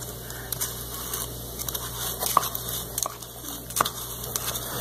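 Metal spoon stirring a wet mixture in a small plastic cup, with irregular light clicks and scrapes of the spoon against the cup and two sharper clicks about two and a half and four seconds in.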